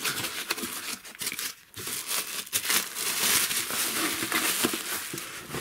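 Plastic bubble wrap crinkling and crackling as hands grip and pull it open. There is a brief lull about one and a half seconds in, then it gets louder and busier.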